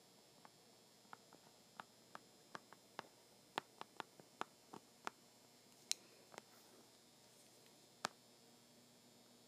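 Faint, irregular taps and clicks of handwriting on an iPad's glass screen. There are about eighteen short clicks over the first six and a half seconds, then one more about eight seconds in, all over a near-silent room.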